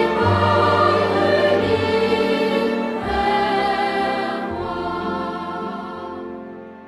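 Background music with choral singing, sustained chords that fade out near the end.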